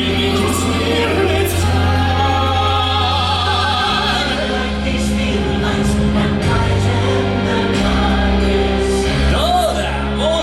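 Stage-show music with singing: voices hold long, wavering notes over a steady bass line that changes note about every four seconds.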